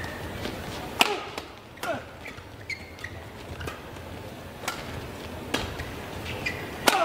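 Badminton rackets striking a shuttlecock in a fast doubles rally: sharp hits every second or so, the loudest about a second in and near the end. Short shoe squeaks on the court floor come in between.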